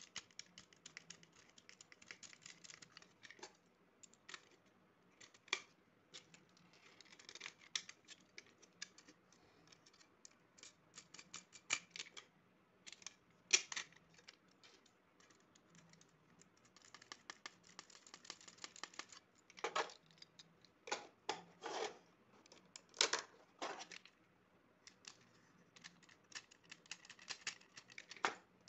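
Faint, irregular plastic clicks, taps and scrapes as switch and socket modules are pressed into a white plastic switchboard box and the box is turned over by hand. Louder bunches of clicks come about halfway through and again later.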